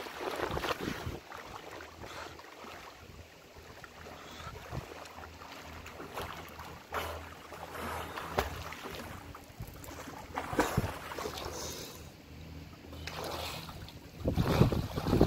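A swimmer's strokes splashing in open water, coming in irregular splashes every second or two, with wind on the microphone. Near the end the splashing turns much louder and closer as the swimmer reaches the ladder and climbs out.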